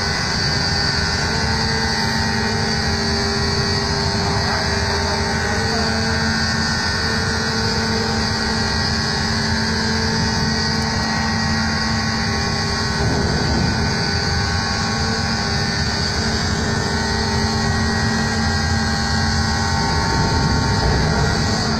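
Semi-trailer lorry's diesel engine running as the truck creeps and manoeuvres. It is a loud, steady drone with a few held tones.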